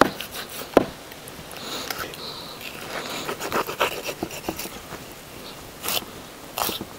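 Large knife cutting raw beef on a wooden chopping block. The blade knocks sharply on the wood a few times, with softer scraping and rubbing as the meat is sliced and trimmed between the knocks.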